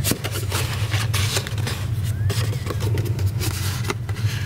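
Red cardstock rustling and crackling as it is handled and folded by hand, in short irregular bursts, over a steady low hum.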